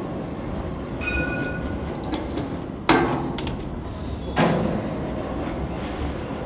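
A steady rolling rumble with two sharp knocks, about three and four and a half seconds in, and a brief high ring near the start.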